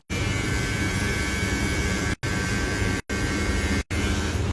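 Steady hum with hiss, cut off by three brief total dropouts.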